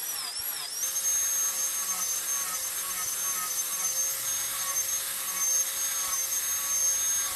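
Electric angle grinder with a sanding disc running against a small steel knife blade, a steady high-pitched motor whine. Its pitch wobbles at first, then holds steady from about a second in.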